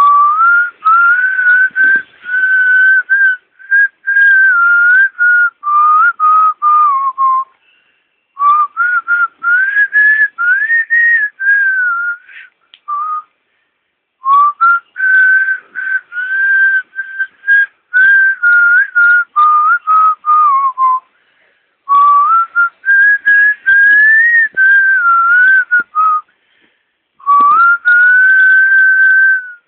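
A tune whistled as a single clear melody line that rises and falls, in phrases of several seconds separated by short pauses.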